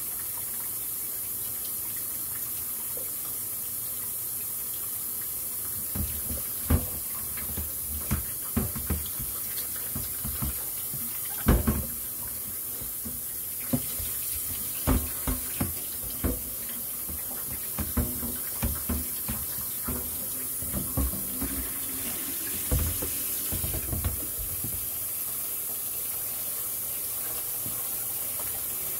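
Kitchen tap running steadily into a stainless steel sink as a large plastic litter box is rinsed, with irregular knocks and bumps of the plastic box against the sink from about six seconds in until the last few seconds.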